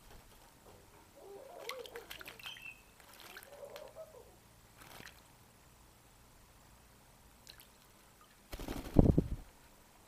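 A parrot's wings flapping hard and fast at close range for about a second near the end, the loudest sound. Before that come a few soft clicks and brief, faint bird calls.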